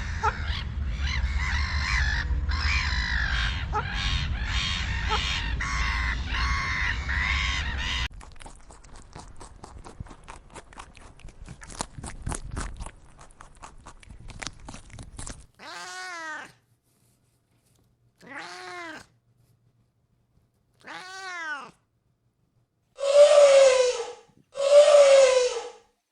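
Domestic cat meowing five separate times, each meow rising and then falling in pitch, the last two much louder. Before the meows comes a dense, noisy stretch with calls in it, then a run of clicks.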